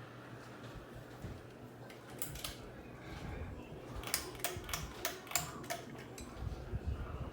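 Hugger ceiling fan running with a steady low hum. About four seconds in comes a quick run of roughly seven sharp clicks or clinks.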